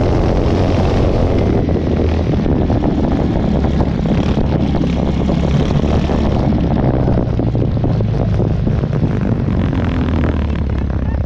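Two-wheel tractor's engine running steadily as the machine drives along, with small knocks and rattles riding on the engine note.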